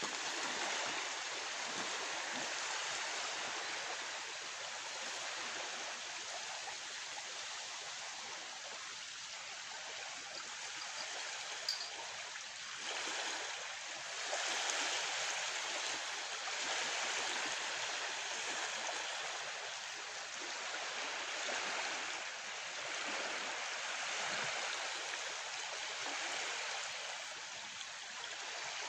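Small waves lapping at a river bank: a steady wash of water that swells and eases every couple of seconds, with one faint click about twelve seconds in.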